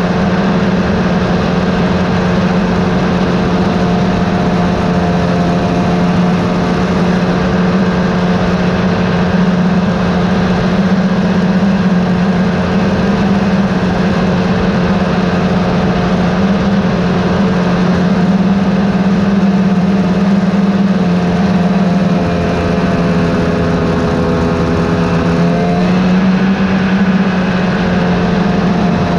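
Snowmobile engine running steadily under way. Its note sags slowly about three quarters of the way in, then picks back up near the end.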